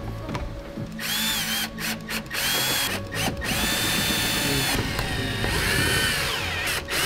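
Milwaukee cordless driver with a socket extension, run in a string of trigger pulls to drive in headlight mounting screws. Starting about a second in, its motor whine rises and falls in pitch and stops briefly several times.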